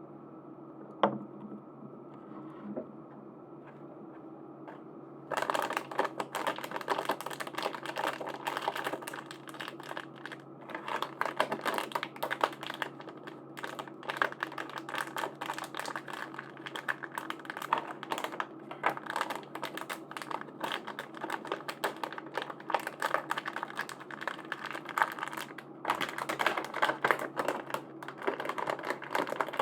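Plastic packaging crackling and rustling as it is handled and opened, a dense run of small clicks starting about five seconds in, over a steady low hum.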